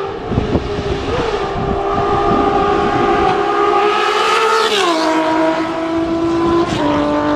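Honda CBX 1050's 1047cc inline-six engine running hard, its exhaust note rising slightly before the engine speed drops sharply about five seconds in and holds steady lower.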